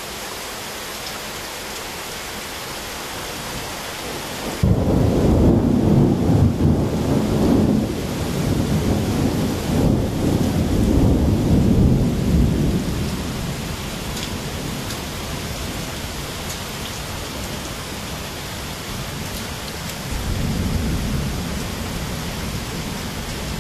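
Steady rain falling, then about four and a half seconds in a thunderclap breaks in suddenly and rolls on as a long low rumble for some eight seconds before dying away. A second, fainter rumble of thunder comes near the end.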